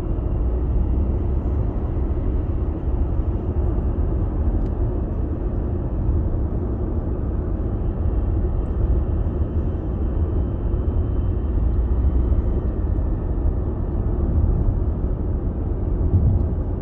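Steady low road and engine rumble of a car cruising at highway speed, heard from inside the cabin.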